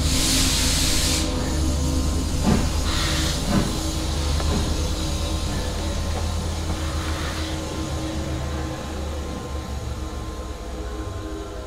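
A steady low rumble with faint humming tones over it, broken by bursts of hiss: a long one at the start, a shorter one about three seconds in and a weaker one about seven seconds in. The whole sound slowly fades a little toward the end.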